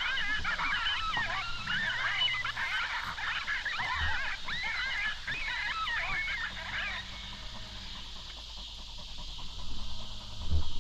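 Coyotes yipping and howling together in many overlapping, wavering high calls, which die away about two-thirds of the way through. A low thump near the end.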